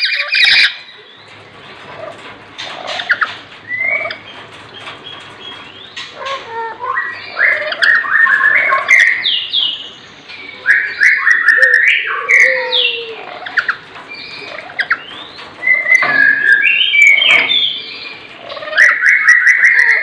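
Lories squawking and chattering: runs of rapidly repeated harsh calls that rise and fall, broken by short pauses.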